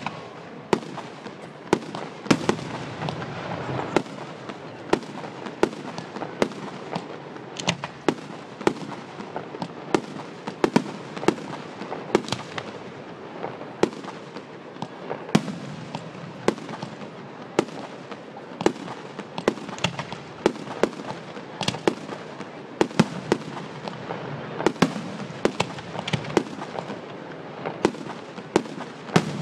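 Fireworks display: shells bursting one after another at irregular intervals, sharp bangs about every one to two seconds, with a steady din of noise between them.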